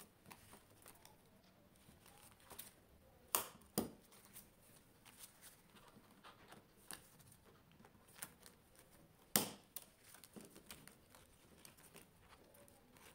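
Faint rustling and crinkling of clear plastic zip pouches in a ring-binder planner as they are handled and flipped. A few sharper clicks come about three and a half seconds in, just before four seconds, and about nine and a half seconds in, the last being the loudest.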